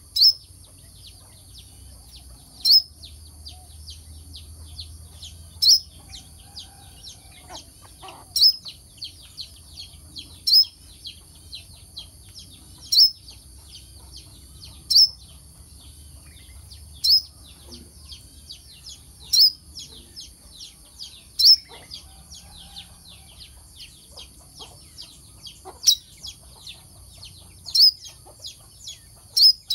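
A kelicap mayang kelapa sunbird calling: a loud, sharp high chirp about every two to three seconds, with many fainter quick high notes between, over a steady high hiss.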